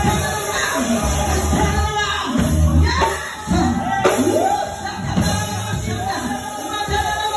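Live gospel music from a church band, with heavy bass, a tambourine and voices singing or shouting over it.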